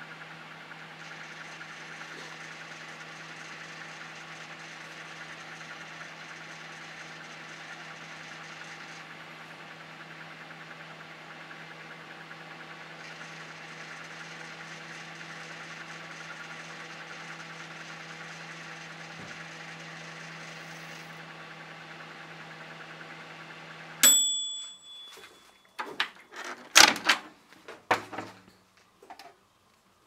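Saturn microwave oven running on high power with a steady hum. About 24 seconds in, the end-of-cycle bell dings once with a sharp click and the hum stops. The door is then opened, with a few knocks and clatters as a cup of water is handled.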